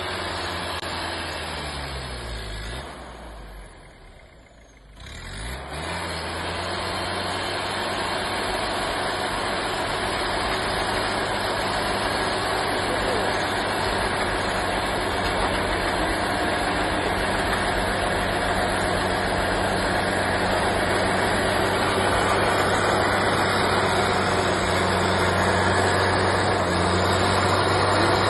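Engine of a lifted Toyota Hilux pickup running as it crawls through deep snow. Its pitch falls and it fades about three seconds in, then it picks up again and grows steadily louder as the truck comes closer.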